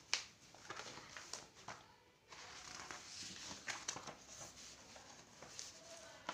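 Paperback textbook pages being flipped and rustled in the hand. There is a sharp snap just after the start, several lighter paper ticks, then a steady rustle of pages from a couple of seconds in.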